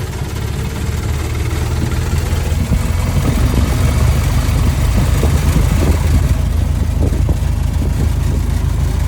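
1923 Ford Model T's four-cylinder flathead engine pulling in gear at low revs, lugged down under load, with a steady low rumble that gets a little louder about two to three seconds in.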